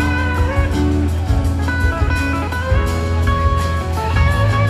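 Live band playing an instrumental passage of a slow blues-soul ballad: a lead electric guitar with held and gliding notes over bass and drums.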